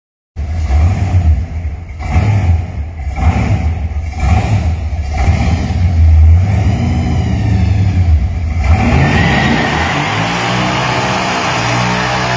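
A 1950s Chevrolet's engine revved in sharp blips, about one a second, then held at high revs for a burnout. In the last few seconds a steady rushing hiss of spinning rear tyres joins the engine.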